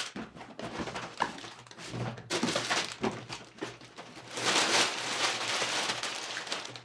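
Plastic bags of kit parts crinkling and rustling as they are pulled out of a cardboard box, with the box lid scraping as it is lifted off. The rustling is loudest a little past the middle.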